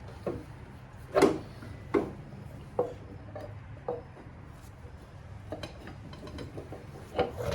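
Metal parts knocking and clunking as a motorcycle rear wheel is worked into place against its brake caliper, about five separate knocks with the loudest a little over a second in, then a few faint clicks near the end.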